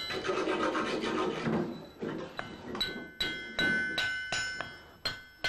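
Small hand hammer striking an iron tool on a blacksmith's anvil, each blow ringing with a bright metallic tone. After a duller, rougher stretch in the first second and a half, the blows come steadily, about two or three a second.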